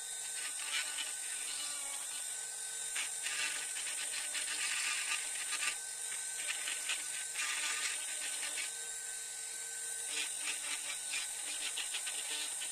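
Handheld rotary tool running with a steady high whine, its fine burr grinding into linden wood in short, irregular scratchy passes as it is pressed on and lifted off.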